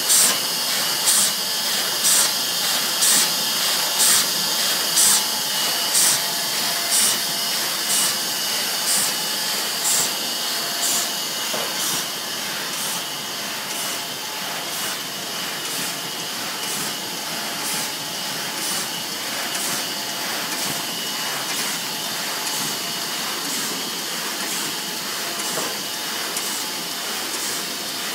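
Pneumatic suction sheet feeder of a sheet-fed press running, puffing air about once a second as it lifts and separates each sheet from the paper pile, over a steady hiss of air and machine noise. The puffs fade into the hiss after about ten seconds.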